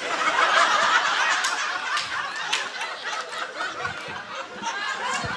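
Live audience laughing in response to a stand-up punchline, loudest at the start and slowly dying down.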